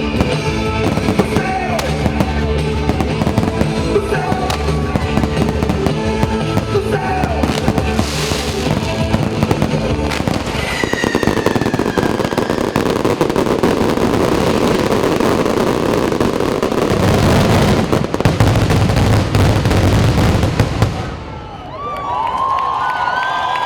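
Rock music plays under a pyromusical fireworks display. From about ten seconds in, a dense, continuous crackling barrage of fireworks swamps the music. It stops suddenly near the end, and the crowd cheers.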